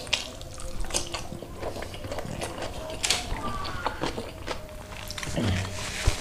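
Close-up wet chewing and lip-smacking of a mouthful of rice and fish in curry sauce, with many small sharp mouth clicks. A brief low hummed "mm" comes about five and a half seconds in.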